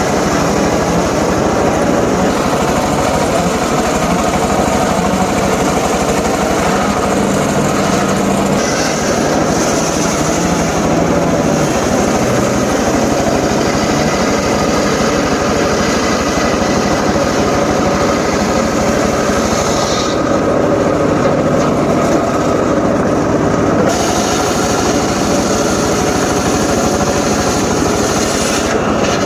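Homemade circular saw rig running continuously with its motor going, working through johar wood. A bright upper hiss drops away for a few seconds about two-thirds of the way through, then returns.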